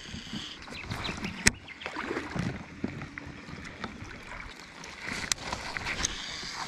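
Water sloshing and handling noises around a river raft, with two sharp clicks, the first about a second and a half in and the second past five seconds.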